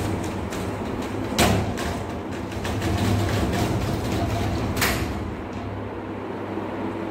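Sliding glass window panes being pushed along their tracks, with two sharp knocks, about a second and a half and about five seconds in, over a steady hum.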